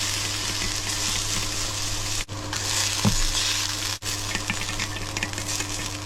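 Cured pork stir-frying in hot oil in a pan over a fierce stove, sizzling steadily, with occasional faint scrapes of the spatula and a steady low hum underneath.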